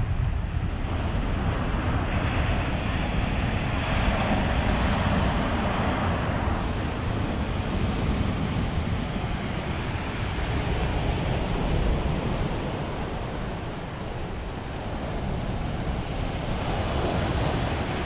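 Moderate sea surf on a pebble beach: waves rolling in and breaking, the rush of water swelling and easing with each wave. Wind buffets the microphone as a low rumble underneath.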